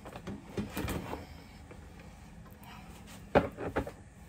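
Metal bread tin knocking on a kitchen bench as the baked loaf is turned out of it: a few soft knocks about a second in, then three sharp knocks close together near the end.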